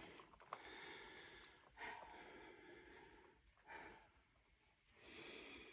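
Near silence with a few soft breaths, about four in all, from a person close by.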